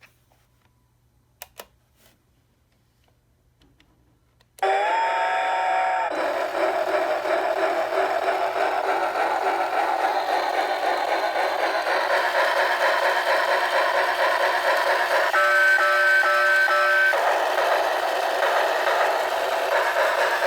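Locomotive-model alarm clock going off with a recorded steam-train sound: a steam whistle, then steady chugging of a train under way, with a second whistle blast about fifteen seconds in. It starts suddenly after a quiet stretch in which two small clicks are heard.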